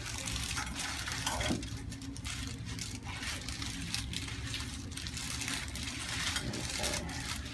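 Steady low room hum with faint scattered rustling and small clicks, like hands and fabric moving against a treatment table.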